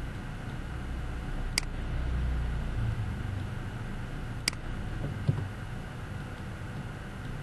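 Steady low background rumble, broken by sharp computer-mouse clicks about one and a half seconds in and again around four and a half seconds, with a soft thump a little after five seconds.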